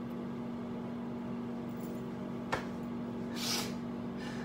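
A woman laughing almost without voice, with a short hissing intake of breath about three and a half seconds in and a single click midway, over a steady low hum.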